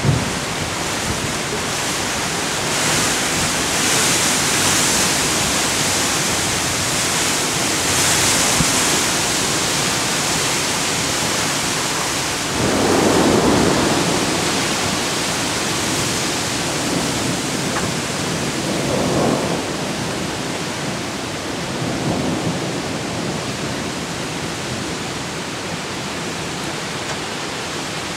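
Thunderstorm: a steady hiss of heavy rain and gusting wind that swells twice early on, with a rumble of thunder about halfway through and fainter rumbles later.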